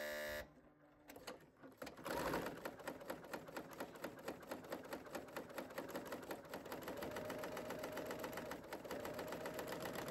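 Serger (overlocker) sewing a two-thread flatlock along a sweater-knit edge: a fast, even run of needle and looper ticks that starts about two seconds in and keeps going. A brief steady tone sounds at the very start.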